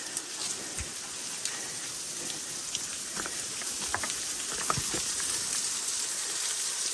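A steady watery hiss, like rain or falling water, with scattered light clicks and ticks over it; it grows a little louder toward the end.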